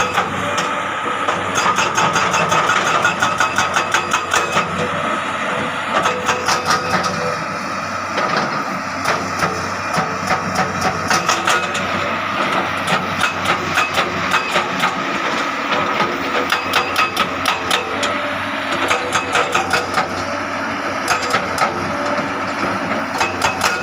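Hydraulic excavator with its diesel engine running steadily, overlaid by runs of sharp metallic clacks at about four a second.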